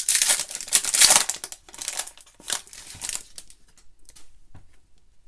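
Foil wrapper of a trading-card pack crinkling and tearing as it is opened, a run of rustling bursts loudest about a second in, fading after about three seconds into a few faint ticks as the cards are handled.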